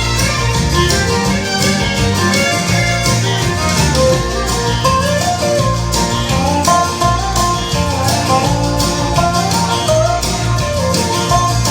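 Instrumental break of a country song: guitar and fiddle playing the melody over a steady drum beat.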